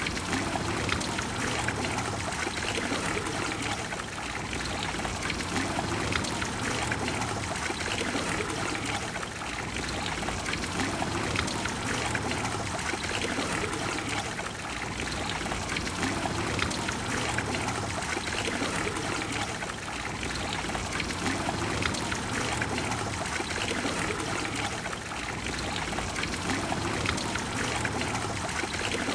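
Steady, continuous rush of water flowing and falling in the Trevi Fountain.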